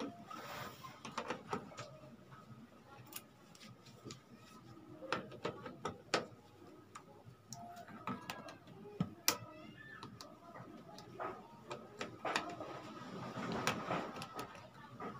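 Irregular metallic clicks and scrapes of pliers working loose the mounting nut of an amplifier's volume potentiometer on the front panel.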